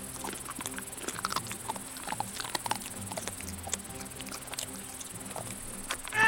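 Creature sound effects for small creatures feeding on a carcass: irregular clicks and short squeaky chirps, over a faint steady high hiss.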